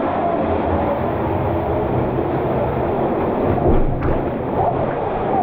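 Fast river water churning through a narrow rock gorge below a small waterfall, a steady rushing and splashing heard from right at the water surface, with a brief louder surge a little past the middle.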